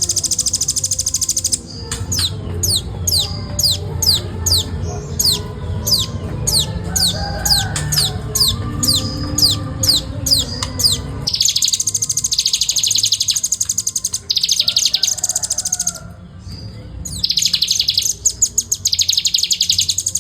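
Velvet-fronted nuthatch singing. It starts with a fast, tight rolling trill, then gives a run of high notes, each sliding down in pitch, about two to three a second. It goes back to the fast trill in long stretches with short breaks.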